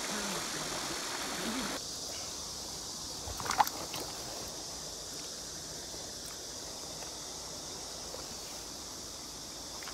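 Steady rush of water flowing through a shallow river riffle. The water sound drops a little about two seconds in, and one short sharp sound stands out a moment later.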